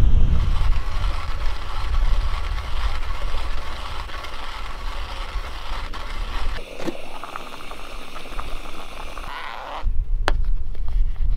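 Hand-cranked burr coffee grinder crunching whole coffee beans in a steady grinding noise, with wind buffeting the microphone in the first second or so. Near the end the grinding stops and there is a single sharp click.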